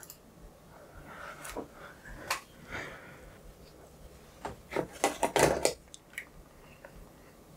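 Handling noises at a desk: scattered small clicks, taps and rubbing, with a cluster of sharper knocks about five seconds in that is the loudest part.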